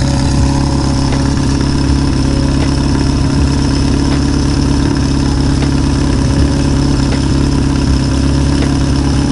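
Four-cylinder Honda motorcycle engine idling steadily while its carburetors are being synchronized by vacuum.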